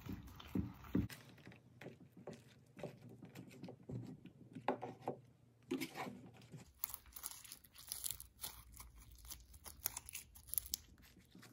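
Glue-and-borax slime being stirred with a spoon in a styrofoam bowl and worked by hand: a run of irregular short scraping and crackling strokes.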